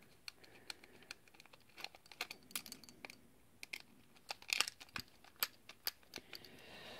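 Small screwdriver turning screws out of the plastic housing of an LED disco bulb: faint, scattered clicks and scrapes of metal on screw heads and plastic.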